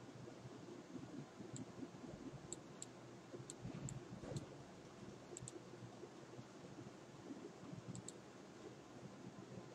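Faint computer mouse button clicks, about ten in all, several in quick pairs, over a low steady room hum.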